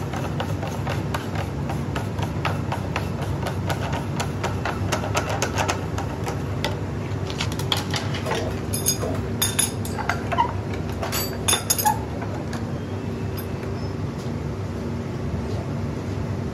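Workshop machinery running with a steady hum, overlaid by many sharp clicks and knocks, with a cluster of louder clacks around the middle.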